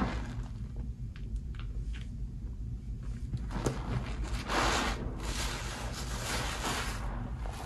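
Soaked sponges squeezed and kneaded by hand in thick soap foam in a metal bowl: wet squishing of suds, with louder squeezes about halfway through and again near the end, over a steady low hum.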